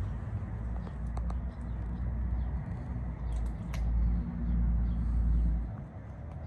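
Outdoor ambience: an uneven low rumble of wind on the microphone, easing near the end, with a few faint bird chirps.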